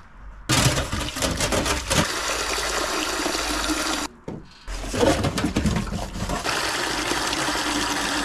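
Water from a kitchen tap running into a metal bowl held in a stainless steel sink as the bowl is rinsed. The flow breaks off briefly about halfway through, then runs again.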